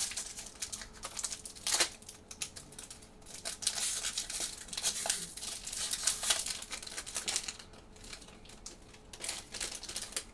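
Foil wrapper of a Magic: The Gathering collector booster pack being torn open and crinkled by hand: irregular crackling that comes in a long spell, then a short lull and a last burst near the end.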